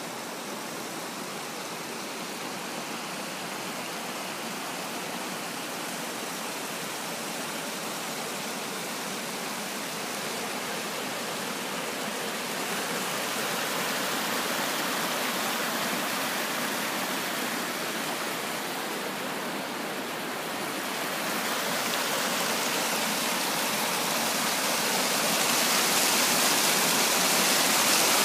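Mountain stream rushing over rocks, a steady rush of water that grows louder as it is approached and is loud at the water's edge near the end.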